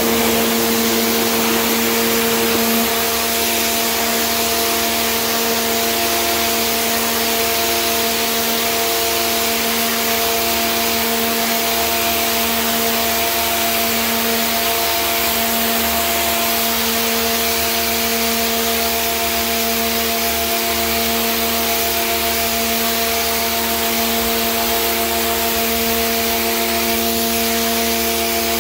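Pressure washer running: the loud, steady hiss of the high-pressure water jet spraying onto concrete paving, over a steady machine hum from the washer's motor and pump.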